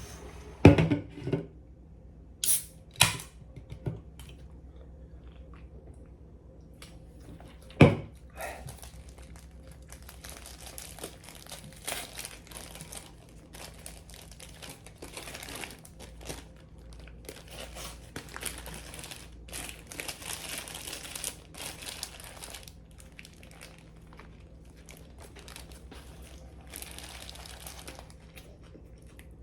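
Paper sandwich wrappers rustling, crinkling and tearing as Subway sandwiches are unwrapped, with a few sharp knocks in the first eight seconds as things are set down.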